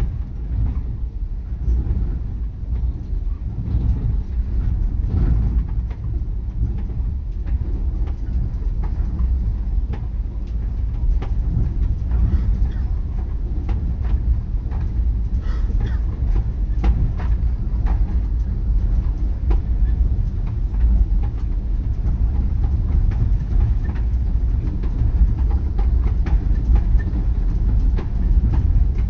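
Train in motion: a steady, heavy low rumble with frequent scattered clicks and rattles from the wheels and carriage.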